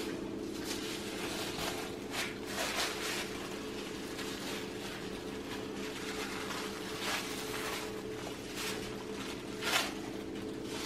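Plastic liner of a tortilla press crinkling and rustling in a few short bursts as it is handled and peeled off a pressed corn tortilla, over a steady low hum.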